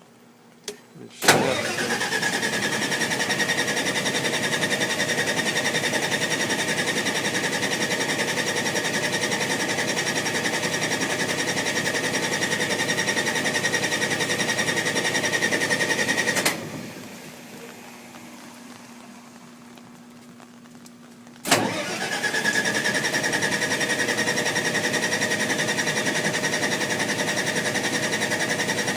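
Generac standby generator's starter cranking the engine, which does not catch. After a click it cranks steadily for about fifteen seconds, stops for about five seconds, then cranks again: a failure to start.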